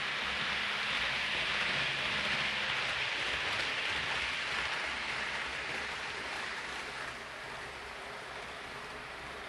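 Hornby OO gauge Class 390 Pendolino model train running past on the layout: a steady rushing whir of wheels on rail and motor, easing off slightly about seven seconds in.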